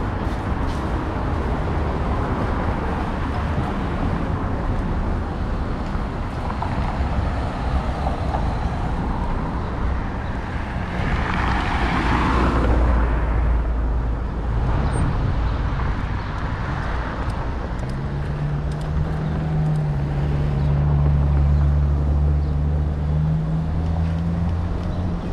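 Street traffic: cars passing on the avenue, one passing close about halfway through with a rise and fall of tyre and engine noise, then a steady low engine hum from a nearby vehicle in the last third.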